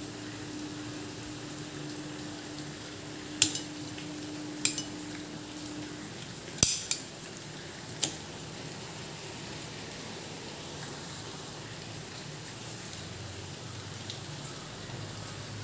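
Knife clinking against a stainless steel plate while slicing fried egg balls: a few sharp metal clicks spaced about a second apart, over a steady background hiss. A faint steady hum stops about six seconds in.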